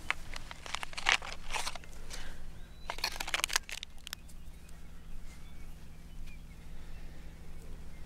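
Close handling noise: crinkly rustling of a fleece wrap and a small plastic medicine tube in hands, in two bursts near the start and about three seconds in, over a low steady hum.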